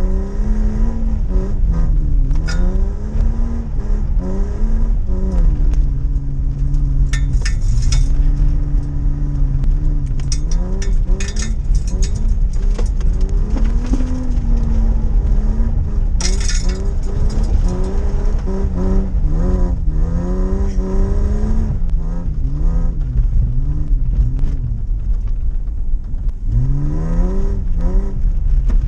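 Lifted Holden Commodore's engine being revved hard, its pitch rising and falling again and again as the welded-diff car is driven and skidded around a dirt track.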